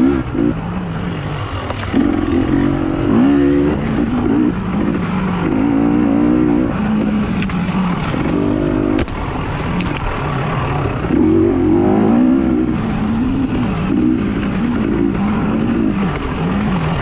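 Racing engines running on a track, their pitch rising and falling repeatedly as they rev and ease off, with more than one engine heard at once.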